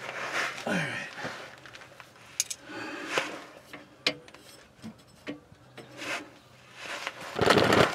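Rusted exhaust parts under a van being worked loose by hand: scraping and rubbing with a few short knocks, and a louder, longer rasping scrape near the end.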